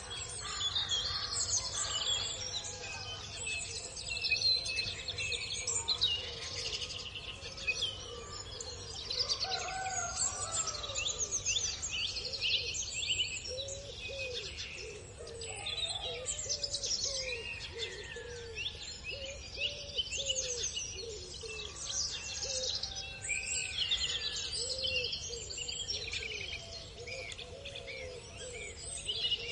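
Many small birds chirping and singing at once in a dense chorus of quick high calls. From about halfway through, a low call repeats roughly once a second underneath.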